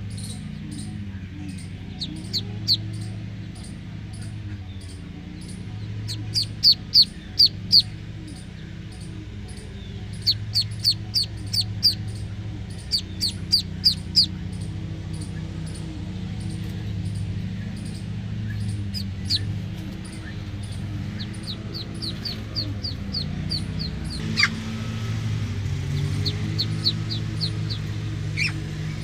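Ringtone backing track: a low sustained drone under a steady light ticking beat, with bursts of quick falling bird-like chirps in runs of four to six, recurring every few seconds.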